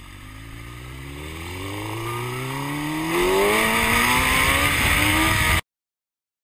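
An engine revving up in one smooth, unbroken rise, climbing in pitch and getting louder for about five and a half seconds, then cutting off abruptly into silence.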